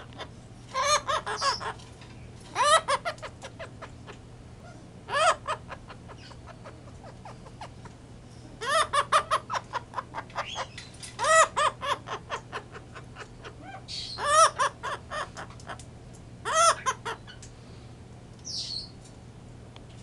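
Blue-headed pionus parrot laughing: about seven bouts of rapid, repeated ha-ha-like calls, each a second or two long, with a short higher call near the end.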